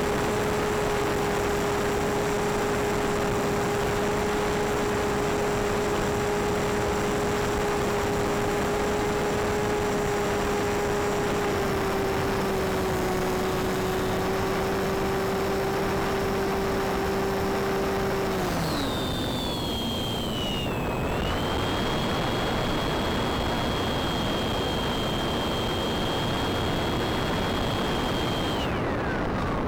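Bixler model plane's electric pusher motor whining steadily over a constant rush of air noise. About two-thirds of the way through the motor's pitch drops away, as when the throttle is cut. A higher whine then glides down, holds steady, and falls away near the end.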